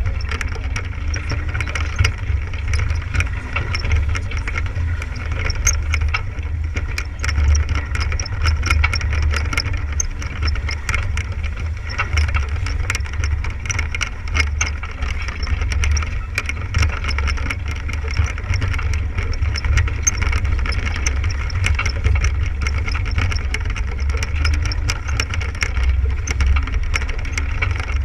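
Wind buffeting the camera's microphone and water rushing along the hull of a sailboat under sail, with many light clicking rattles.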